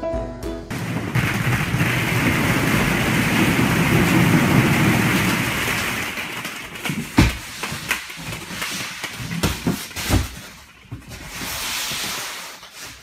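A dense rattling clatter of hundreds of hollow plastic ball-pit balls pouring in and tumbling over one another for several seconds. It thins out about six seconds in to scattered knocks and clicks of single balls bouncing and being knocked about.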